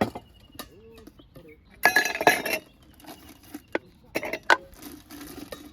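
Dishes and cutlery clinking and knocking while food is handled, with a louder clatter about two seconds in and two sharp knocks a little past four seconds.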